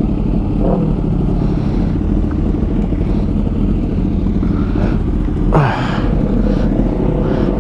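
Yamaha R6's inline-four engine running steadily while riding, under heavy wind rush on the helmet microphone. A brief louder rush comes about five and a half seconds in.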